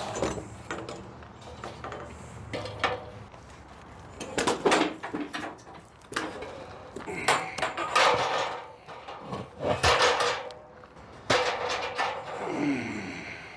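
Old wooden ladder being pulled up out of a concrete hatch: wood knocking and scraping against concrete and metal in a series of irregular clattering knocks.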